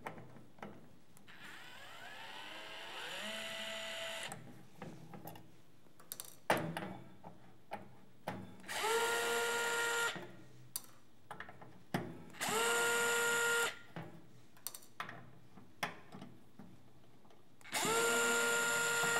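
Cordless electric screwdriver working the Phillips screws out of an aluminium equipment case. A softer run whose whine climbs in pitch about two seconds in is followed by three short runs of steady whine, each about a second and a half long and each rising quickly to speed. Light clicks and taps of the bit on the case fall between them.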